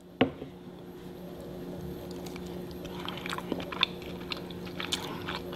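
A person bites into a plant-based buffalo chicken strip dipped in ranch, close to the microphone: one sharp bite about a quarter second in, then chewing with a run of small clicks that grows busier about two seconds in.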